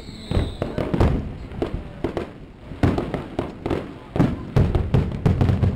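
Aerial fireworks shells bursting in an irregular string of bangs and booms, at times several a second. A falling whistle trails off in the first half second.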